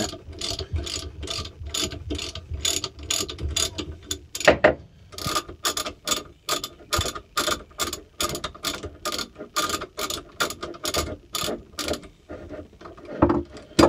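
Socket ratchet clicking in even strokes, about three clicks a second, as it runs out the already-loosened bolt in the end of the jet ski's flywheel. The clicking stops about twelve seconds in, and a couple of louder knocks follow near the end.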